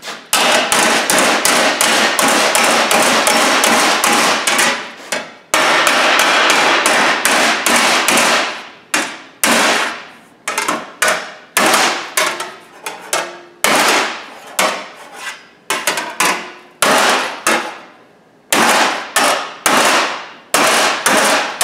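Hammer beating 18-gauge sheet steel over a steel pipe, shaping a curved repair panel. A fast, continuous run of blows comes first, with a brief pause about five and a half seconds in. After about eight seconds it slows to separate strikes, each ringing out.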